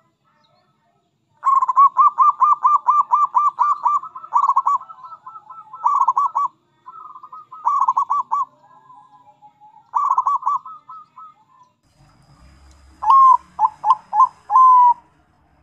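Zebra doves cooing: phrases of quick, evenly repeated coo notes at about four a second, with short pauses between phrases. Near the end a second bird gives a louder short phrase of four notes, the last one drawn out.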